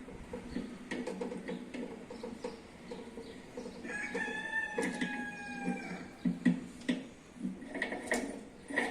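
A rooster crowing once, a held call of about two seconds starting around four seconds in, over scattered short clicks and knocks.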